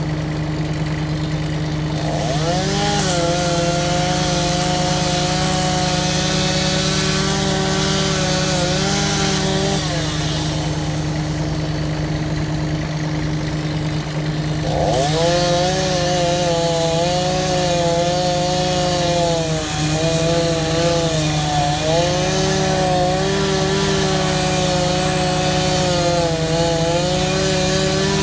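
Chainsaw revving up and cutting through wood about two seconds in. It drops back to idle near ten seconds, then cuts again from about fifteen seconds, its pitch dipping several times as the chain bites under load.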